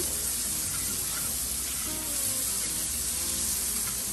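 Seasoned shrimp sizzling steadily in a hot frying pan, with soft background music underneath.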